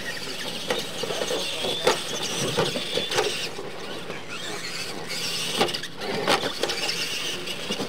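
Radio-controlled monster trucks pulling away on a dirt track: a high electric motor and gear whine rising and falling, with sharp knocks as the trucks hit and land off wooden ramps.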